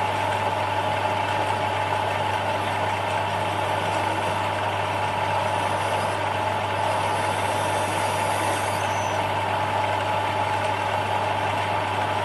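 Small bench metal lathe running steadily at speed, a constant hum with a higher steady whine from its motor and drive, while a small drill in the tailstock cuts dry into a spinning brass workpiece.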